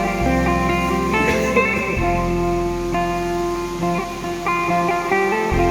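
Background music led by guitar: plucked and strummed chords over a bass line that changes note every second or two.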